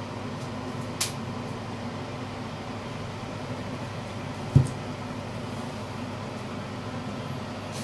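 Steady low kitchen hum, with a short click about a second in and a single thump, the loudest sound, about four and a half seconds in.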